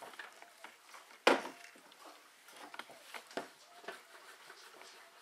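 Clothes iron being handled and pushed over fabric on a wooden tabletop: a sharp knock about a second in, then a few lighter knocks and soft rustling of fabric.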